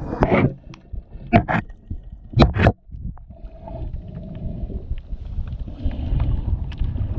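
Water sloshing and splashing around a camera at the surface, with several sharp knocks in the first three seconds. After that it turns into a low, muffled underwater rumble as the diver goes under.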